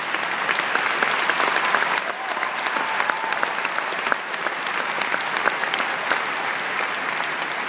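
Large audience applauding, many hands clapping at once, easing off gradually near the end.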